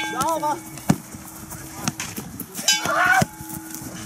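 Players shouting during a jugger match over the knocks of padded weapons hitting each other. A sharp strike followed by a ringing tone comes at the start and again nearly three seconds in, together with the loudest shout.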